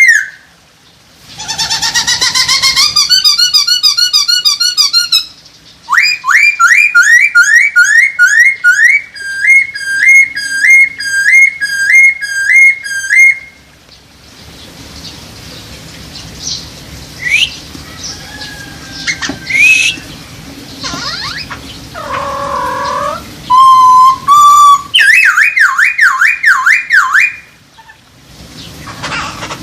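Poksay hongkong laughingthrush giving loud whistled song in phrases of rapidly repeated upslurred notes, with quieter scattered calls in the middle. It is the bird's mating song.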